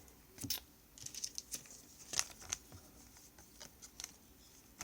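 Faint, scattered clicks and light scrapes of chrome trading cards being handled, flipped and stacked.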